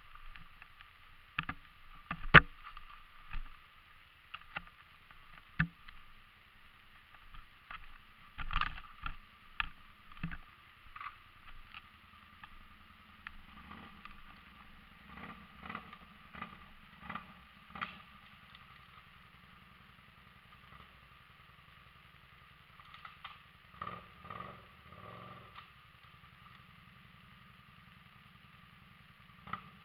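ATV running steadily, with irregular knocks and rattles scattered through it, the sharpest about two seconds in.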